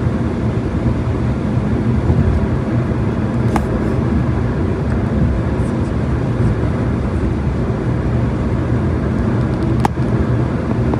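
Steady road noise of a car driving, engine and tyre rumble heard from inside the moving car, with a faint click about three and a half seconds in and another near the end.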